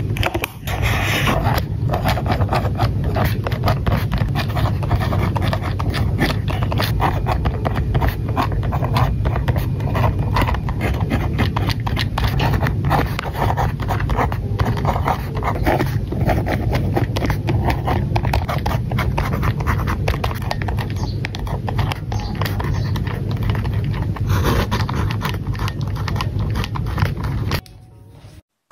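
Pen tip scratching rapidly across grid paper while writing, close to the microphone, a continuous run of fine strokes and ticks that stops abruptly near the end.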